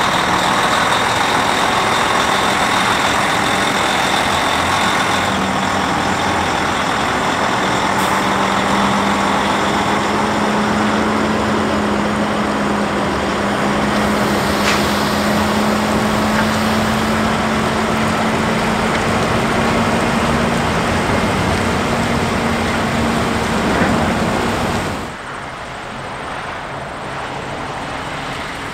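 Heavy diesel prime mover hauling a race-car transporter trailer, its engine running under load as it pulls away, the note climbing slowly. About 25 s in it gives way to quieter passing road traffic.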